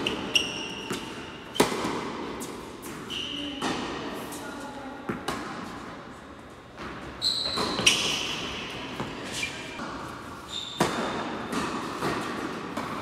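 Tennis rally on an indoor hard court: sharp pops of the ball off the strings and its bounces, about one every second or two, echoing in the large hall. Short high squeaks of sneakers on the court come in between.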